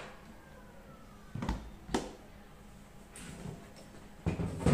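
A few short knocks and thuds of a hard plastic motorcycle top box being handled and moved, with the loudest cluster near the end.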